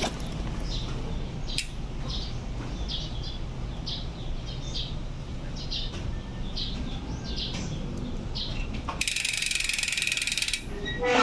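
HASSNS PRO4 mountain bike rear freehub ratcheting, its six pawls clicking over 120 engagement points. Near the end the wheel freewheels fast and the clicks merge into a dense, even buzz for about a second and a half.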